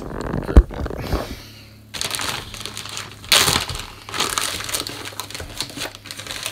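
A large package of salt being handled, crinkling and rustling, with a sharp knock about half a second in and a louder crinkle a little past the middle.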